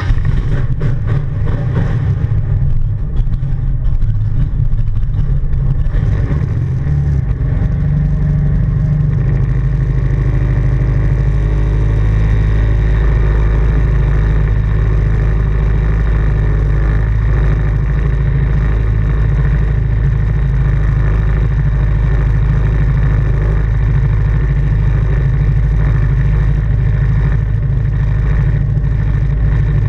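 Jersey speed skiff's inboard engine opening up and running hard, loud and up close. It comes in sharply at the start, changes note about seven seconds in, then holds a steady high-speed run.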